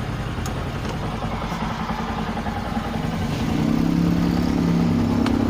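Kawasaki Rouser 135's single-cylinder four-stroke engine running after a general tune-up; about three seconds in the revs rise and hold at a higher, louder steady speed.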